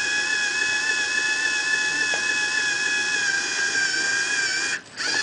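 Electric motor of a robotic chess board's under-board positioning mechanism running with a steady high-pitched whine as it moves a piece. Near the end it cuts out for a moment, then starts again.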